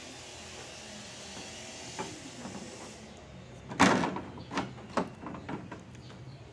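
Sheet-metal top cover of a Sharp window-type air conditioner being fitted onto the unit's casing: a loud metal clank about four seconds in as it comes down, followed by several lighter knocks as it is shifted into place.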